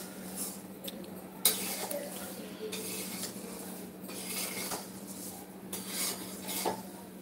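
A steel ladle stirring and scraping dry flattened rice around a steel kadhai, with repeated short scrapes and rustles and one sharp metal clack about a second and a half in.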